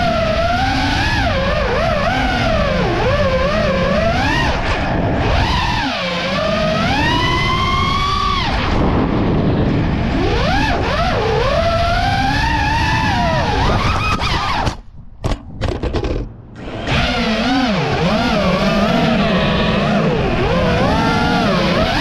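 FPV freestyle quadcopter's brushless motors and propellers whining, the pitch sweeping up and down with throttle. The sound drops away sharply a few times in quick succession about two-thirds of the way through.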